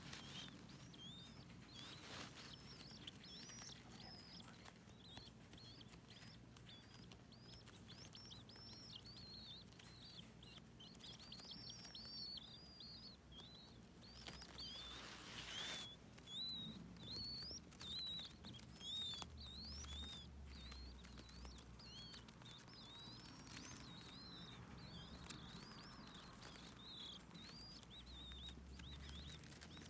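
Baby birds peeping: many short, high chirps overlapping throughout, with a brief soft rustle about halfway through.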